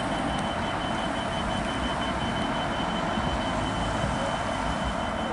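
GB Railfreight Class 66 diesel locomotive, its two-stroke V12 engine running with a steady, even rumble, a thin steady high tone sitting over it.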